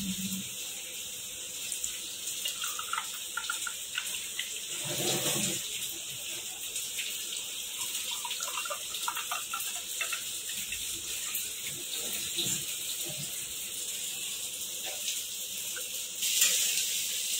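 Cold milk being poured from a metal pot into ceramic mugs: a continuous trickle and splash of liquid.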